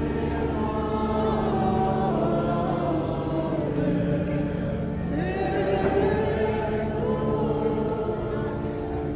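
Several voices chanting a Byzantine Orthodox hymn together, with long sustained notes and a low drone note held beneath the melody for about the first half.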